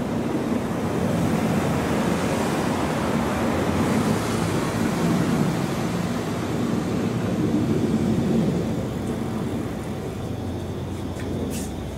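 Steady low rumble of the Blue Impulse team's Kawasaki T-4 jets flying over in formation, easing off somewhat near the end.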